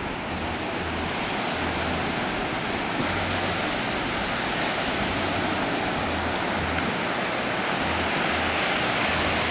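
Ocean surf washing onto a sandy beach: a steady rush of waves that swells slightly toward the end, with soft low thumps about twice a second underneath.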